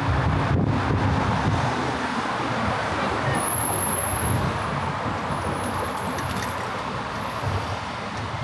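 Steady road traffic: the continuous rumble of cars and buses passing, with a thin high squeal for about a second a little over three seconds in.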